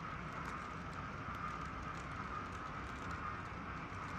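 N scale model train cars rolling past on the track: a steady running hum with faint, irregular clicking from the wheels.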